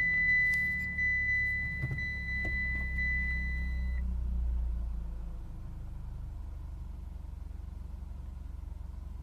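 Mitsubishi Lancer Evolution X's turbocharged 2.0-litre four-cylinder engine just after starting, on a freshly replaced timing chain. It runs at a raised cold idle that drops and settles to a steady idle about five seconds in. A steady high electronic beep from the car sounds over it and cuts off about four seconds in.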